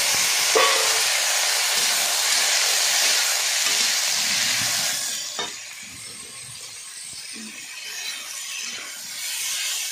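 Cut drumstick (moringa) pods frying in hot mustard oil with onions in a steel kadhai, stirred with a metal spatula. A loud sizzle fades to a quieter frying hiss after about five seconds, and the spatula knocks against the pan once soon after.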